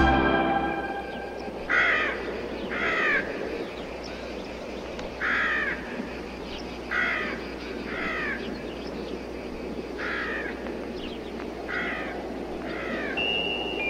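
Harsh cawing bird calls, about eight in all, some coming two at a time, over a steady outdoor hiss.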